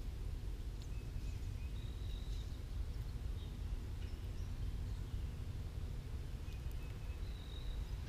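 Faint songbird calls at a backyard feeder: a few short chips and two held high whistles, one about two seconds in and one near the end, over a steady low outdoor rumble.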